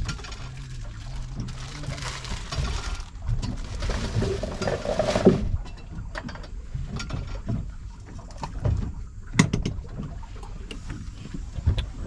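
Water sloshing and splashing as hands work in a metal pot of water for about five seconds, stopping fairly suddenly; then a few scattered knocks, the sharpest about nine and a half seconds in.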